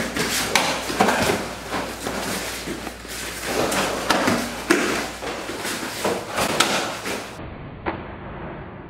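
Grappling and scuffling in karate sparring: cotton gis rustling and snapping as the two grip and pull, and bare feet thudding and scuffing on the floor mat, with irregular sharp slaps and thumps. It turns duller and quieter near the end.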